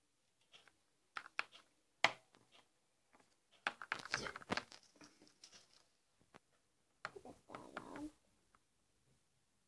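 Handling noise: small plastic toys being picked up and moved about, a sharp click about two seconds in and bursts of rustling and clattering, the longest around the middle and again near the end.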